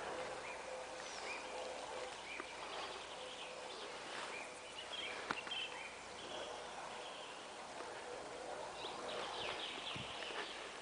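Outdoor ambience with scattered short bird calls over a steady background hiss, and one light tap about five seconds in.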